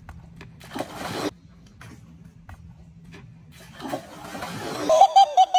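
Water splashing and slapping as a golden retriever snaps at the pool's surface, in two short bursts about a second in and about four seconds in. Near the end comes a brief run of high, pulsing voice-like sounds.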